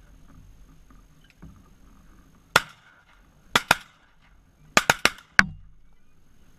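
Two shotguns fired in a quick volley: a first shot about two and a half seconds in, then a pair, a fast run of three and a last shot, about seven shots in under three seconds.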